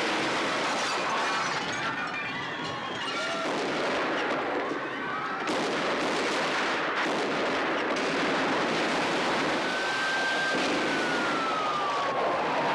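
Film soundtrack of sustained automatic gunfire in a shootout, with people screaming over it.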